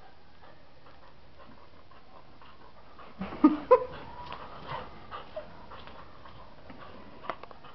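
Dog panting while tugging at a towel, with a short, loud burst of pitched dog vocal sounds about three seconds in and a few small clicks near the end.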